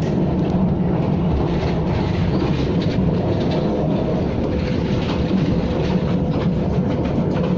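KTM ETS electric train running at speed: a steady low rumble with faint clicks of wheels over the rails.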